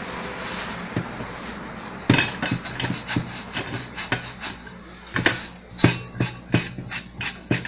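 Rubbing and wiping on the orange juicer's base while it is cleaned. About two seconds in this gives way to a run of irregular sharp knocks and clicks.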